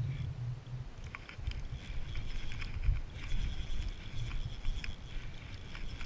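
Okuma Coronado spinning reel being cranked against a taut line, with light clicks and a faint whir from the reel, over a steady low rumble.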